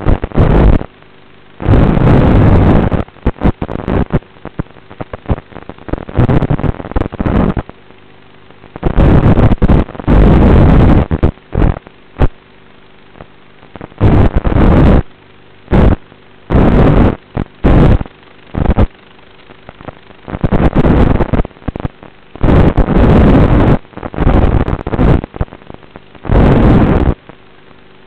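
FPV quadcopter in flight, heard through its analog video link's audio: loud, distorted bursts of rushing noise lasting a second or two each, with a steady electrical hum between them.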